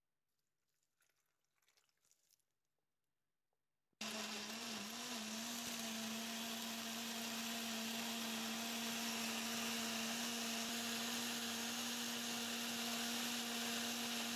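An electric countertop blender switches on abruptly about four seconds in and runs steadily, blending milk and fruit into a smoothie, with an even motor hum and whirr. The hum wavers briefly just after start-up, then holds steady.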